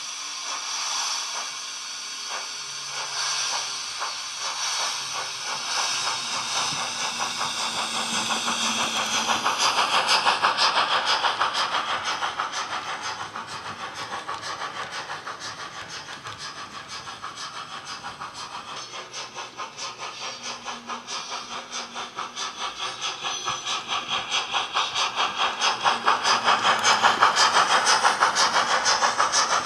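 Steam locomotive sound from a DCC decoder's small speaker in an OO gauge model of LNER No. 10000 'Hush Hush': steam hiss, then exhaust beats that quicken as the loco pulls away and gets up to speed.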